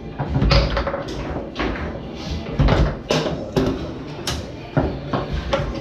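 Foosball being played on a Tornado table: the ball struck by the plastic men and banging off the walls, with rods sliding and clacking against their bumpers, an irregular run of about ten sharp knocks and thuds.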